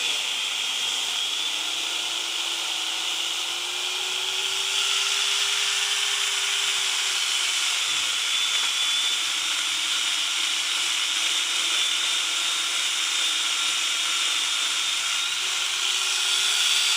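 Electric angle grinder fitted with a chainsaw attachment, running and sawing wood. Its motor whine wavers in pitch, sagging and recovering as the chain takes load, and dips sharply for a moment about eight seconds in.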